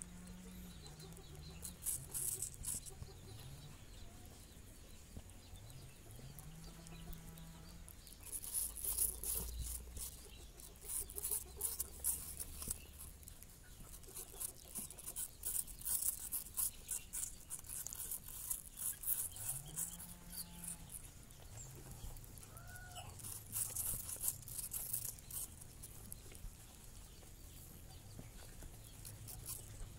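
Baby rabbits gnawing and chewing an apple close to the microphone: bursts of crisp, fast crunching clicks, heaviest about a third of the way in and again near the end. A faint low hum that slides up and down in pitch sits underneath.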